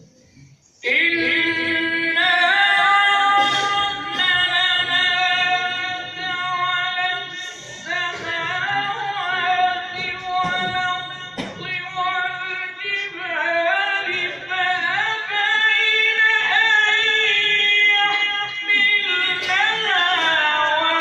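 A male voice reciting the Quran in a melodic, drawn-out tilawat style, holding long notes with ornamented pitch bends. It begins about a second in, with short breaks between phrases.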